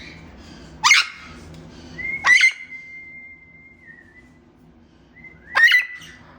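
Parrot giving three sharp calls a second or two apart. The second call runs into a long, steady whistle of about two seconds.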